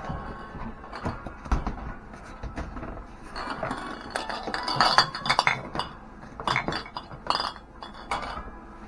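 Small-mouthed glass curing bottles clinking and knocking against each other as they are handled. The knocks come in an irregular run, thickest in the middle.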